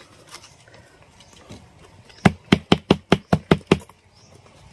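Kitchen knife chopping at a hard betel nut on a banana leaf: about ten quick, sharp strikes in a second and a half, starting about two seconds in.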